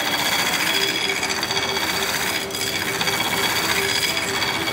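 Belt grinder running with its abrasive belt grinding a steel knife blade into a distal taper: a steady hiss with a whine over it. The grinding briefly lets up about two and a half seconds in.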